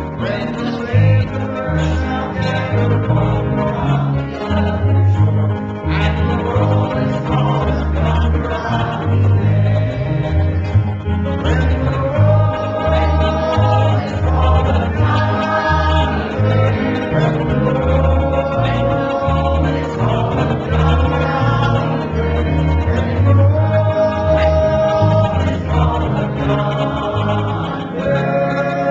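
Live gospel music from a small band: an archtop guitar and an electric bass playing a steady bass line, with singing voices that come in strongly from about halfway through.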